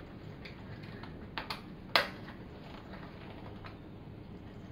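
Buckle and webbing of a Spinlock Deckvest life jacket being handled as the leg strap is threaded and fastened at the waist: a few sharp clicks, the loudest about two seconds in, over quiet handling.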